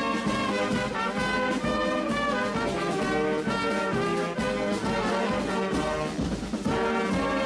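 Background instrumental music laid over the slideshow, with sustained notes that change every half second or so.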